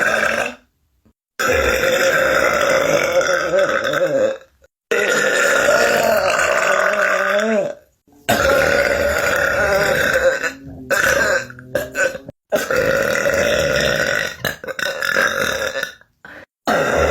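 A person burping long, drawn-out burps one after another, each lasting two to three seconds, with sudden cuts to silence between them. The burps after the middle are shorter and choppier.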